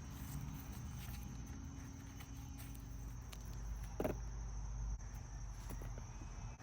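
Hands digging potatoes out of garden soil: soft scraping and small knocks, with one louder thump about four seconds in. A steady high insect drone runs behind.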